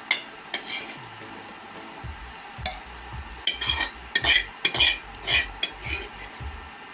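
A metal spoon stirring and scraping against a cooking pot, with repeated irregular clinks as mutton is stirred and fried.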